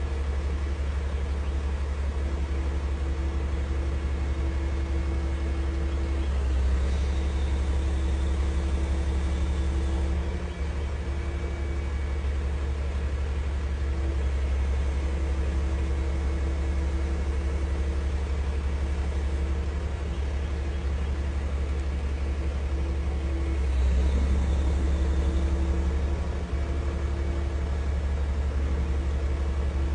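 A heavy machine's engine running steadily with a deep hum, swelling slightly twice, about seven seconds in and again near the end.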